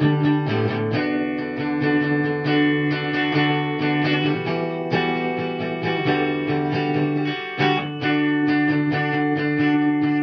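Guitar-led rock band music, strummed guitar chords ringing out over a steady bass line.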